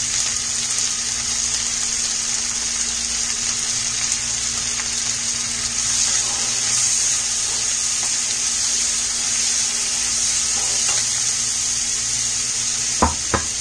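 Chopped onions frying in hot butter and oil in a stainless steel pan: a steady sizzle. Near the end a spatula knocks twice against the pan.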